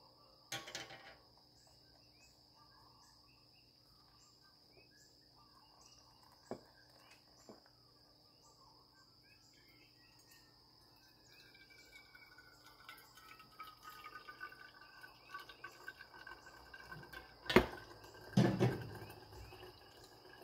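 Hot water poured slowly from a stainless stovetop kettle onto ground coffee in a paper-filter pour-over cone: a faint trickle that gets louder for several seconds. Near the end, two sharp knocks as the metal kettle is set down on the stove.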